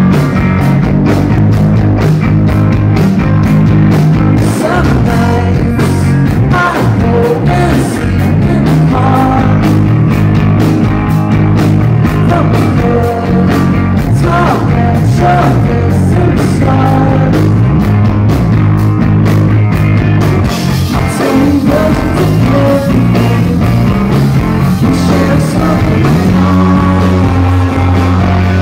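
Live rock band playing loudly: electric guitars, bass and drums together with a steady beat. About twenty seconds in, the drumming changes to a continuous cymbal wash.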